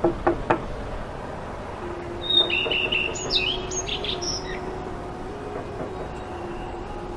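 Three quick knuckle knocks on a wooden door, then a few birds chirping, over a steady low hum.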